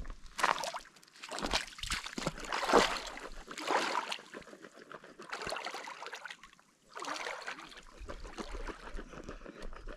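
Wading footsteps in shallow lake water: irregular splashes and sloshes as a person walks out from the shore in flip-flops, louder in the first few seconds and fading as he wades further out.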